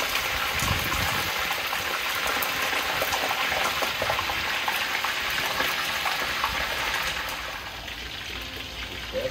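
Seasoned red snapper pieces frying in a large pot of hot oil: a steady sizzle that eases a little about three-quarters of the way through.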